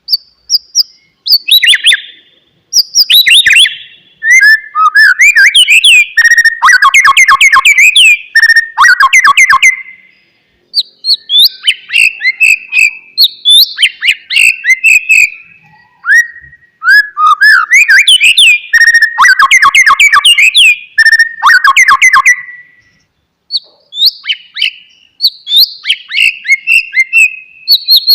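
White-rumped shama (murai batu) singing: bursts of clear whistles and fast chattering runs of notes, broken by short pauses.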